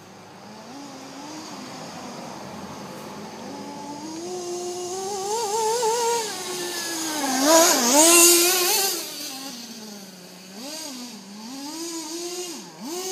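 HSP Camper nitro RC buggy's small two-stroke glow engine revving up and down as it is driven on grass. It is loudest about eight seconds in, with a sharp dip in pitch near the end.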